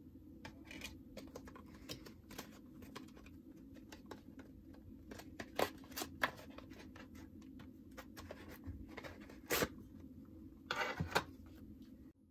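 Handling of a cardboard CD photobook and its disc on a tabletop: a string of light taps, clicks and rustles, with a few louder knocks near the middle and a cluster of them near the end.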